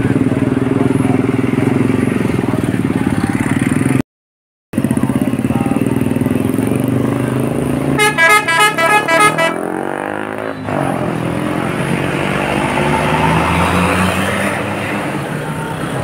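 Tour coach engine running close by as the bus pulls past. About eight seconds in, a bus sounds its Basuri 'telolet' musical horn: a quick string of short multi-tone toots lasting about a second and a half. Road traffic noise follows.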